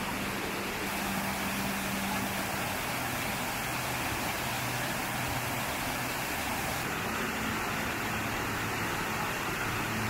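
Waterfall and cascading mountain stream rushing: a steady, even noise of falling water.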